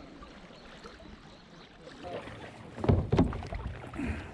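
Kayak paddling on a river: paddle strokes in the water, with a few louder splashes about three seconds in.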